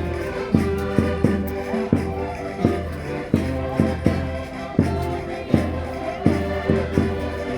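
Concertinas (diatonic button accordions) playing a lively Minho folk dance tune, sustained reedy chords over a strong low beat that falls roughly every 0.7 seconds.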